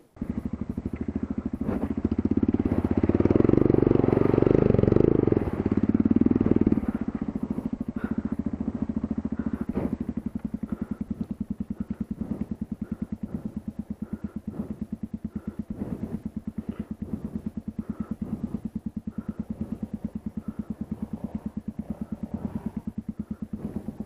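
Motorcycle engine starting abruptly, revved for a few seconds, then running on at low revs with an even, steady beat; the engine sound stops right at the end.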